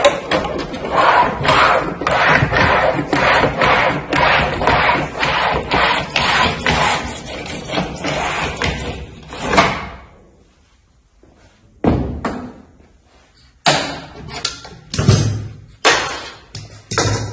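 Hand-operated Buschmann standing seam bender being rolled along a metal roofing sheet, forming the upper seam profile, with a dense run of repeated metallic scraping and clattering strokes for about ten seconds. After a short pause comes a series of sharp knocks and thumps as the bench clamps and the panel are handled.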